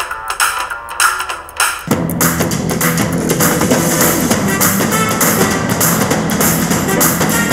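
Music with drums and guitar, thin and without bass for about the first two seconds, then suddenly full with deep bass. The thin part stands for a conventional monitor's speakers, the full part for the MZ27AQ's Harman Kardon 2.1-channel speakers with subwoofer.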